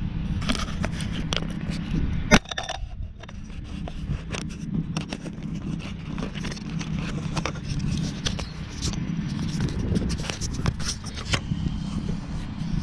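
Walk-behind mower's Honda engine running steadily under load as the blade cuts wet, tall grass, with scattered sharp clicks and ticks and one loud crack about two and a half seconds in.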